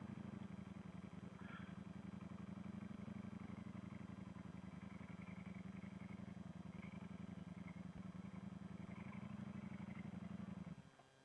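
Ducati Panigale V4S's V4 engine running steadily at low revs in first gear as the bike rolls to a stop, then cutting out abruptly near the end. The engine has stalled, and the rider says it has kept switching off since then.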